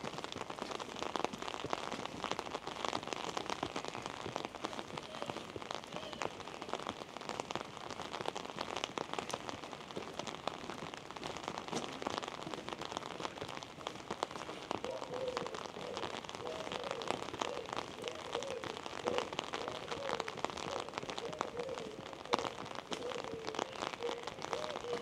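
Steady rain falling, a dense even hiss full of small irregular drop ticks.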